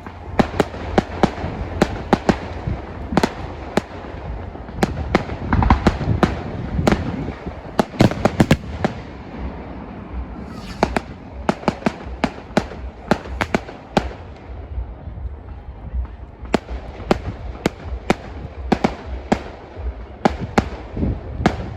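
Fireworks display: rapid volleys of sharp bangs and crackles, several a second, over a steady low rumble, thinning briefly about two-thirds of the way through before picking up again.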